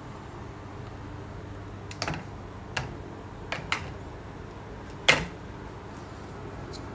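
A Dyson Supersonic hair dryer being handled against a wall-mounted holder: a few light clicks and knocks, five in all, the loudest about five seconds in as the dryer is set into the holder.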